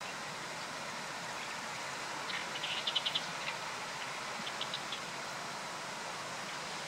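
Zitting cisticola calling: a quick run of sharp, high ticking notes about two seconds in, then a shorter run of about four a second later. A steady hiss lies under it throughout.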